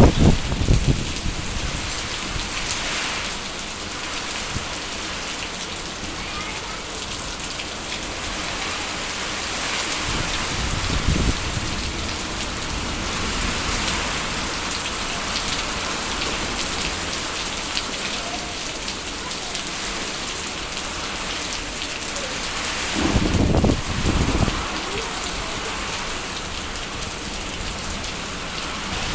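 Heavy rain falling steadily, an even hiss of rain on surfaces. Two short low rumbles rise out of it, one about ten seconds in and a longer one a little before the end.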